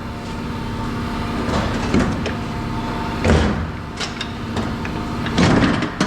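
Scrap parts being handled and set down: a few sudden clanks and scrapes, about two seconds, three seconds, four seconds and five and a half seconds in, over a steady mechanical hum.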